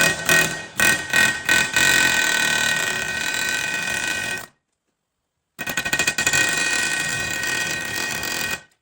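Steel being hammered on a seized boom pin, each strike leaving a ringing metallic tone: a few separate blows, then a fast, continuous run of impacts. This breaks off and a second fast run of impacts follows.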